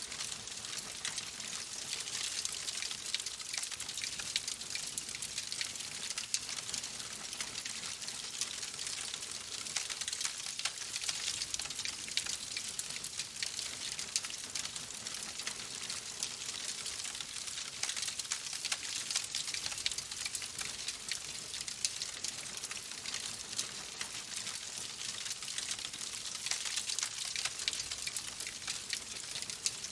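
Oak logs burning in a fireplace: a steady hiss of flames with dense, fine crackling and occasional louder pops.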